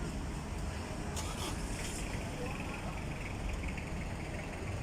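Steady low background rumble, with faint voices now and then.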